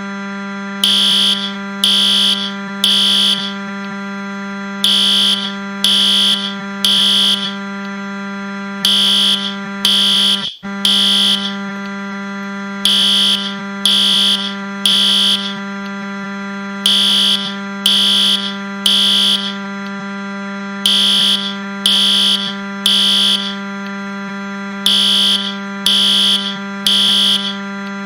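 Fire alarm sounding in the three-beep pattern: three high beeps, then a pause, repeating about every four seconds. Under it runs a steady low, buzzing drone, the Wii console crash buzz pitched down nine semitones. Both cut out for a split second about ten seconds in.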